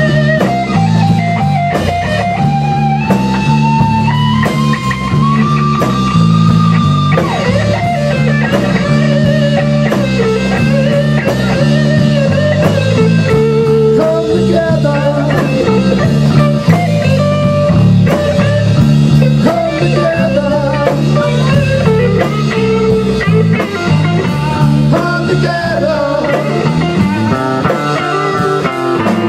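Rock band playing live: electric guitar, bass guitar and drum kit, with men singing into microphones over the band.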